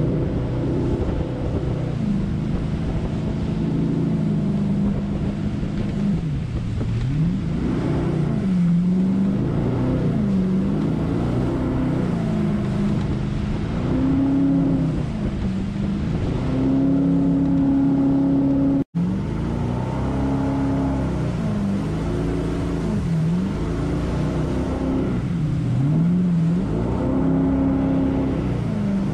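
Jet boat's engine running under load, its pitch repeatedly rising and falling as the throttle is worked through rapids, over the rush of whitewater. The sound cuts out for an instant about two-thirds of the way through.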